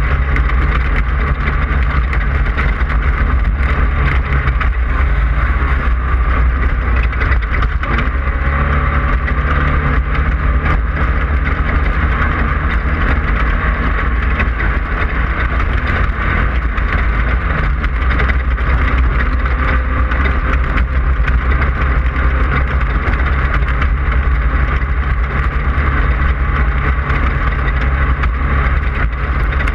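Class 5/1600 Baja Bug's 1600 cc air-cooled VW flat-four running hard under racing load, heard onboard. Its drone is mixed with a constant heavy rumble from the chassis and the rough off-road ground.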